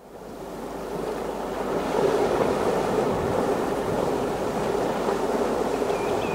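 Recorded ocean surf, fading in from silence over the first couple of seconds and then washing steadily, as the intro of a song track; a faint high gliding call comes near the end.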